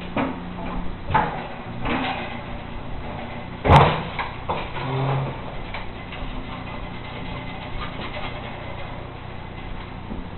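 Knocks and scrapes of a 100-gallon tank water heater being tipped back onto a metal hand truck, with one loud bang about four seconds in.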